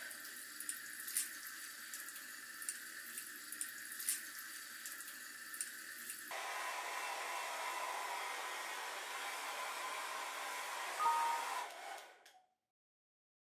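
Shower water spattering and dripping for about six seconds, then a sudden switch to a hair dryer blowing steadily with a faint whine. It stops about a second before the end.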